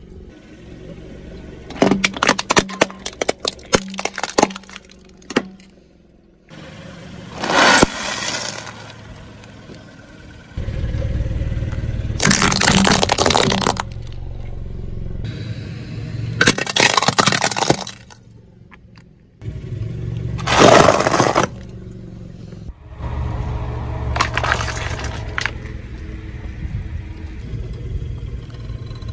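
A car tyre rolling over and crushing objects in a string of short clips: several bursts of cracking and crunching a few seconds apart, the loudest about twelve to fourteen seconds in. The car's low engine rumble runs underneath through much of the second half.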